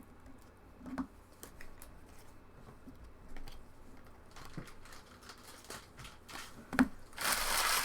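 Light scattered clicks and taps of trading cards being handled, then a sharper click and, near the end, a loud crinkling as a card pack's foil wrapper is torn open.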